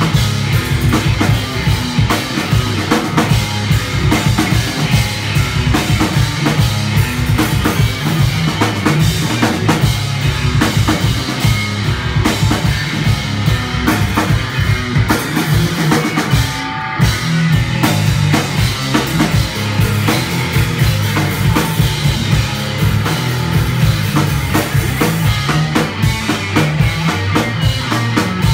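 Live punk rock band playing: electric guitar, electric bass and a drum kit with fast, busy drumming and a heavy low end. The cymbals drop out for an instant just past halfway.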